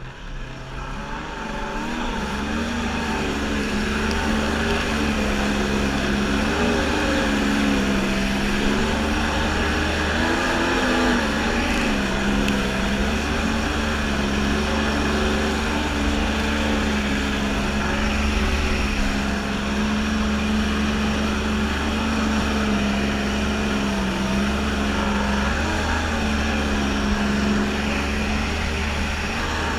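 Kawasaki JS550 stand-up jet ski's two-stroke twin-cylinder engine running at speed, a steady drone whose pitch wavers slightly, over the hiss of water spray off the hull. It builds over the first couple of seconds, then holds.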